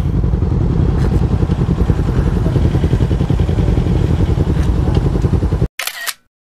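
Suzuki Raider 150 Fi's single-cylinder engine running, a steady, fast-pulsing low rumble. It cuts off suddenly near the end, with a brief snatch of another sound before silence.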